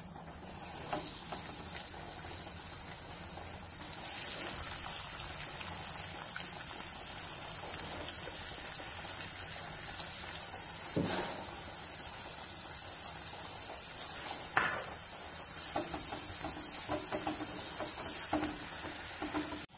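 Chopped onions sizzling as they fry in hot oil in a nonstick pan. The sizzle picks up about a second in, with a couple of short knocks of the stirring spoon against the pan.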